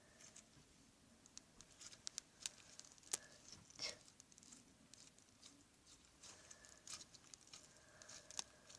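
Faint, scattered sticky clicks and small taps of homemade slime being handled and picked at by hand.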